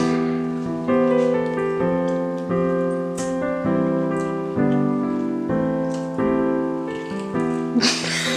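Background piano music: a slow melody of single notes and chords, a new note struck about every half second to second, each dying away.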